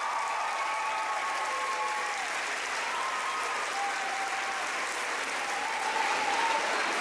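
Audience applauding steadily, with high cheering voices held over the clapping.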